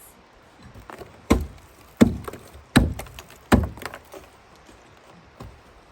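Ice pick or hammer chopping at ice on stairs: four hard strikes about three-quarters of a second apart, with a few lighter knocks around them.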